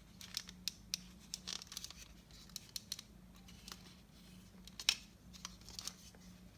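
Plastic doll's joints being bent back and forth, giving short squeaks and clicks, the loudest a little before five seconds in.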